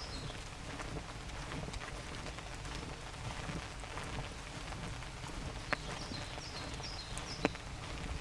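Light rain falling through the forest, with many scattered drops ticking close by and two sharper ticks near the end. A bird gives short runs of high falling notes at the start and again near the end.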